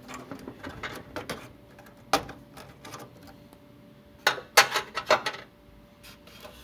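Hard plastic clicks and knocks of a desktop RAM module being unlatched and pulled from its motherboard slot and handled: a few light clicks, one sharp click about two seconds in, and a quick cluster of clicks between four and five seconds in.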